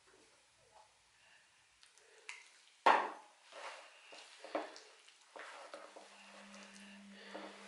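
Hands kneading a dry, crumbly flour dough in a plastic bowl: soft squishing and rustling, with irregular knocks of hands and bowl. A sharp knock about three seconds in is the loudest.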